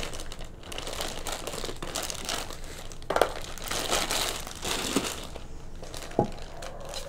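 Thin clear plastic bag crinkling and rustling as it is pulled off a new nonstick frying pan, with small irregular crackles throughout.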